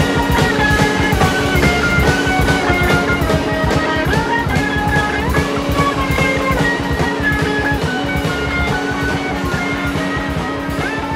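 Background music: an instrumental passage of a rock song, with electric guitar lines over a steady drum beat and a held low note.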